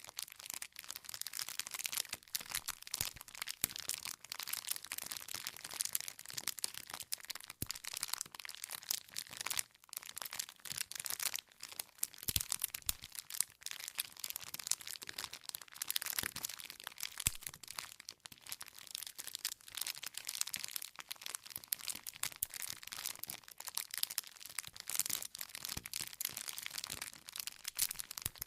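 Wood fire crackling: a dense, continuous run of small snaps and pops from burning firewood, with a few louder pops around the middle.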